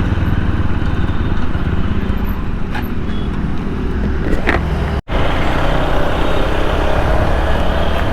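Steady motorcycle riding noise from a helmet-mounted microphone: the TVS Apache 160 4V's single-cylinder engine running under wind and road noise. A sudden cut about five seconds in, after which the same riding noise carries on.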